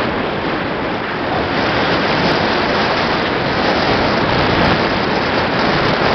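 Steady rush of wind over the microphone from a moving Renault 19 convertible, with tyre and road noise beneath; it grows a little louder about a second and a half in.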